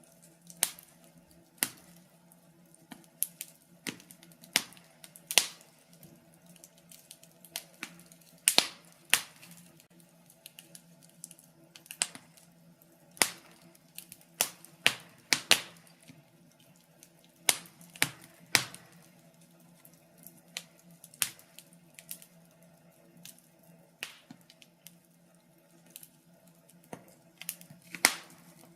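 Wood fire in a fireplace crackling: irregular sharp pops and snaps at uneven intervals, some much louder than others, over a faint steady low hum.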